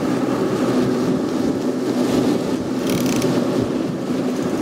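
Boat's outboard engines running steadily at trolling speed, mixed with the rush of wind and wake water. A brief high rattle about three seconds in.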